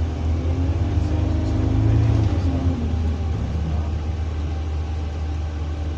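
Engine of the SEN-class single-deck bus SEN40 heard from inside the passenger cabin, running with a steady low drone. Its note climbs in the first second as it pulls, holds, then drops away at about two and a half seconds as it eases off.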